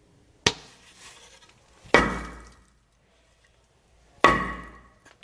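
Foley impacts made to stand in for a bat striking a ball: three sharp hits, one about half a second in, one at two seconds and one just past four seconds, the last two loud and ringing on with a tone.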